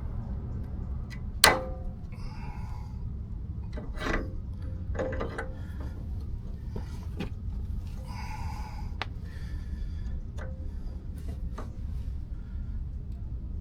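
Hand tools working on the Blazer's steel suspension parts: a sharp metallic clank about one and a half seconds in that rings briefly, then lighter clinks and short scraping passages, over a steady low hum.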